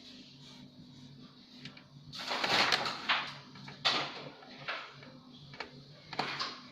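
Handling noises of an SSD being fitted into the bottom of a PC case: a scraping rustle about two seconds in, then a series of short clicks and taps, over a steady low hum.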